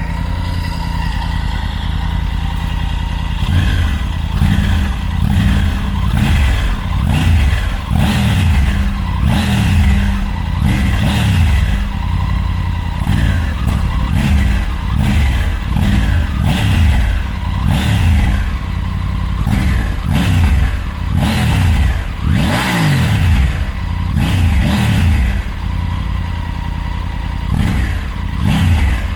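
Triumph Tiger 900 GT Pro's inline three-cylinder engine on its stock exhaust, warmed up. It idles, then is blipped over and over in short revs about a second or so apart, and settles back to idle near the end.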